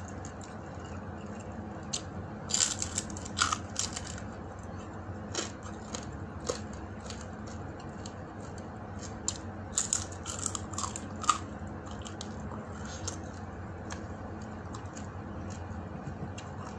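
Metal spoon scraping and clinking against a small glass bowl in two bunches of sharp clicks, some ringing briefly, over a steady low hum.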